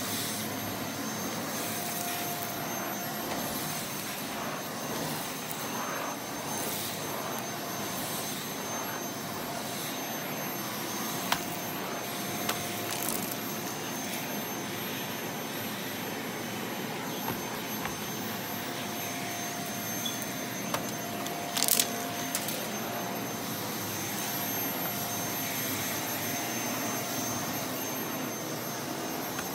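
Cordless stick vacuum running steadily as it is pushed over carpet, with a constant high whine over its motor noise. A few sharp clicks break through, the loudest about 11 seconds in and a short cluster near 22 seconds.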